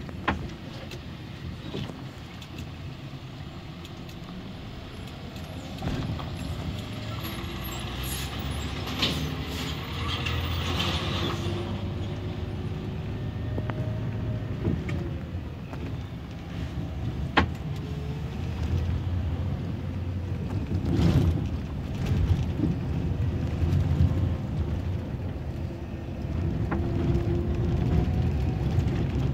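Scania bus's diesel engine running under way, heard from the driver's cabin as a steady low rumble whose pitch slowly rises and falls with engine speed. A spell of hissing comes about ten seconds in, and a few sharp knocks and rattles from the cabin break through on the rough road.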